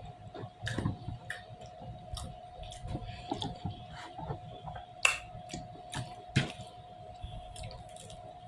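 Close-up chewing and wet mouth sounds of someone eating, with scattered sharp clicks and smacks, the loudest about five seconds in and again a second and a half later. A faint steady hum sits underneath throughout.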